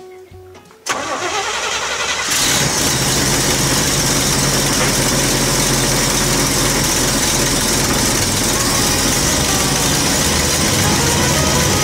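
1969 GMC pickup's engine cranking and starting about a second in, then running steadily at idle.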